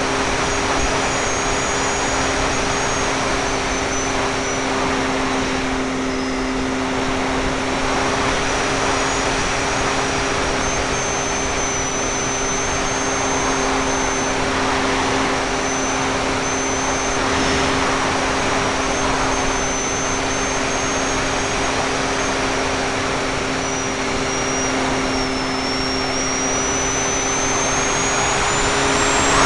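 Parkzone F4F Wildcat RC plane's electric motor and propeller running steadily in flight, heard from a camera taped to the airframe, with a steady hum, a thin high whine that wanders in pitch and rises near the end, and loud rushing airflow over the microphone.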